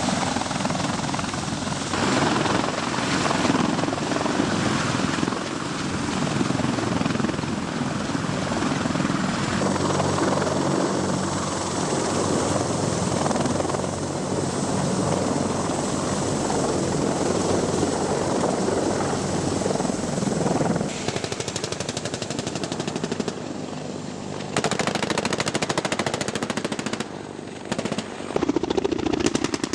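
Heavy military helicopter running close by with a loud steady rotor and turbine noise. About two-thirds of the way in, a fast run of sharp repeated pulses takes over and is the main sound near the end.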